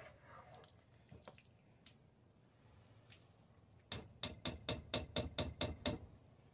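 A plastic measuring cup rapped against the rim of a stainless steel bowl, knocking out thick sweet potato puree: a rapid run of about ten knocks, some five a second, starting about four seconds in, after a few lighter clunks.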